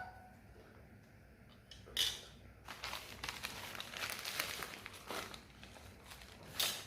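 A delivery package's cover being pulled open and handled, crinkling and rustling in short bursts, the loudest about two seconds in and just before the end.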